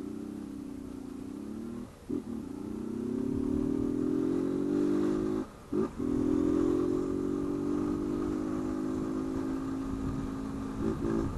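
Honda CG 160 Fan motorcycle's single-cylinder four-stroke engine running under way, with its air-intake hose removed to make it louder. The engine note drops out briefly about two seconds in and again past five seconds, each time picking up again, and climbs after the first break.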